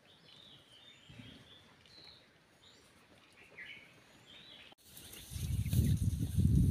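Small birds chirping faintly over a quiet background. About five seconds in, the sound cuts and a loud, low, gusting rumble sets in.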